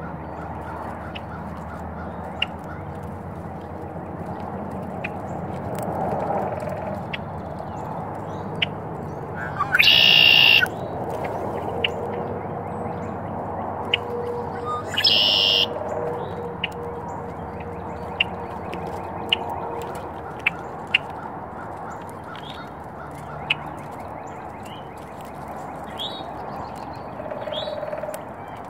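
Birds calling at a feeder: two short, loud calls about ten and fifteen seconds in, and scattered brief chirps or ticks over a steady background hum.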